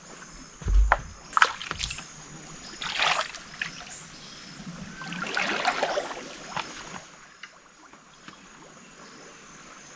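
Water splashing and sloshing in bursts as a person wades into a river, with a heavy thump about a second in.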